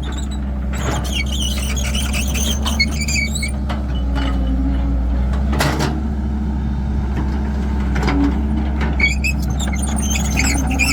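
Cat 312 excavator's diesel engine running steadily as it works, with high-pitched metal squeaking and squealing over the first few seconds and again near the end. A single thump about six seconds in.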